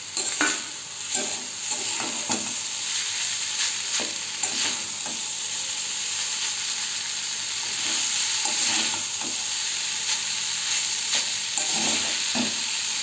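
Boiled Maggi noodles and vegetables sizzling in oil in a metal kadai while a metal spatula stirs them, with a steady sizzle and scattered scraping strokes of the spatula against the pan.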